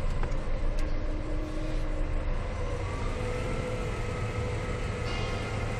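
Scania R420 truck's diesel engine running at low speed, heard from inside the cab as a steady low rumble with a faint hum.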